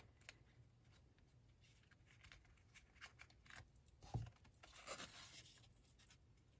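Near silence with faint rustling and small clicks of paper and ribbon being handled, and one soft thump about four seconds in.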